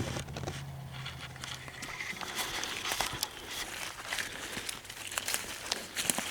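Crackling and crunching of footsteps through dry leaves and brush, with irregular clicks and rustles.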